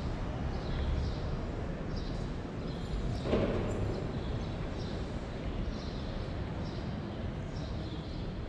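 Footsteps on a stone tile floor, a step about every half second to second, over a low steady rumble of room noise. One louder thump about three seconds in.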